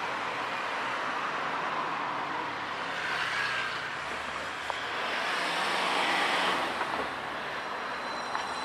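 Road traffic: cars driving past on a town street, the tyre and engine noise swelling twice as vehicles go by.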